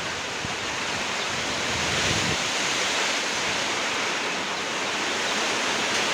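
Rain pouring down in a storm, with wind: a steady hiss.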